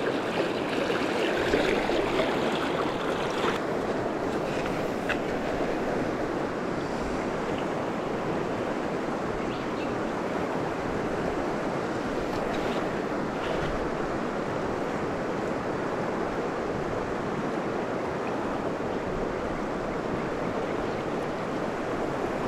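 Steady rush of fast river water through a rapid, with a few faint clicks in the first few seconds.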